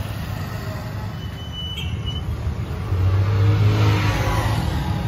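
Vehicle engine running, heard from inside the cabin while driving, growing louder about three seconds in as it accelerates through a turn.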